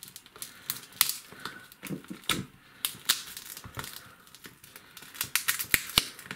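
Cracked glass back panel of a phone crackling and snapping in an irregular run of sharp clicks as it is pressed and pried away from its glue. There are louder snaps about a second in and a cluster near the end.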